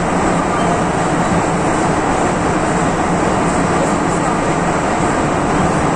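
MTR Tsuen Wan line M-Train running at steady speed through a tunnel, heard from inside the car: a loud, even rumble of wheels on rail and tunnel noise.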